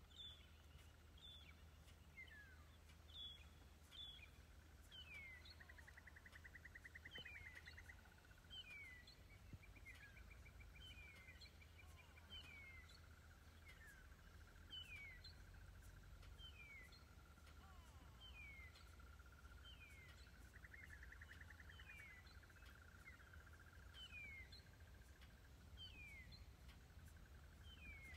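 Faint birdsong: a short whistled note falling in pitch, repeated about once a second, with a buzzy trill twice, over a low rumble.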